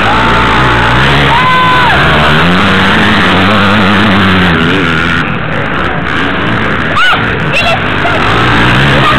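Several motocross bikes' engines revving up and down as the riders take a dirt corner, with their pitch rising and falling continuously. A few brief high calls cut through near the start and about seven seconds in.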